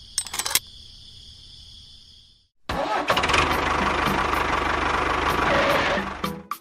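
An engine starts after a few clicks and runs loudly for about three and a half seconds, then cuts off.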